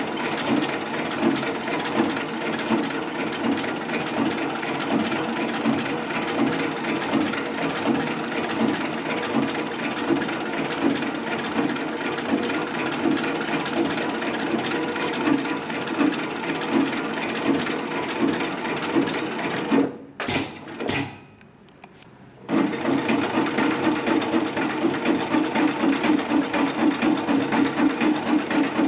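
HIGHTEX 7204MD extra-heavy-duty twin-needle lockstitch sewing machine running at speed, a fast, even stitching rhythm. About two-thirds of the way through it stops, starts twice for a moment, falls quiet for a second or two, then runs again at the same pace.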